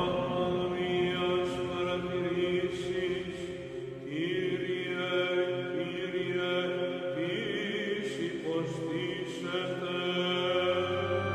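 Light-show soundtrack music of long, held chant-like voices that slide up in pitch about three times.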